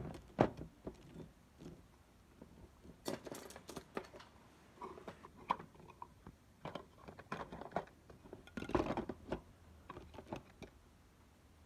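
Scattered light clicks, knocks and rattles of plastic trays and quilling tools being put back into a plastic tool box, with busier clusters about three seconds in and again near nine seconds.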